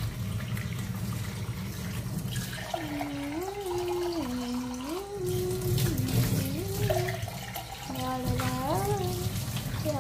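Kitchen-sink tap running steadily, the water splashing over hair as it is washed.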